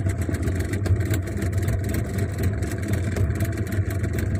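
Outboard motor running steadily at trolling speed, an even low drone.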